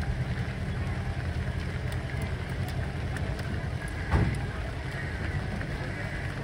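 Steady low engine rumble from a motor running nearby, with one sharp knock about four seconds in.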